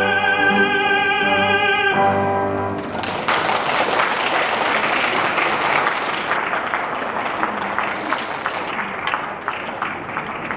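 A man singing in classical operatic style holds a final note with vibrato over piano, ending about two seconds in. Then the audience applauds, the clapping thinning out toward the end.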